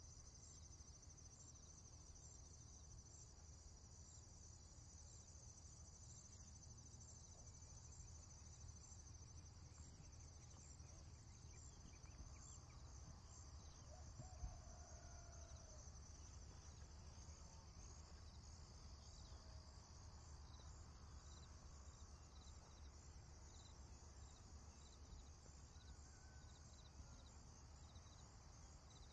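Faint farm field ambience: insects chirping in a steady high trill over a low rumble, with a brief distant animal call about halfway through.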